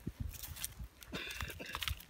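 Small hatchet working into hard dirt in a few short, dull knocks. A brief high-pitched call sounds about a second in.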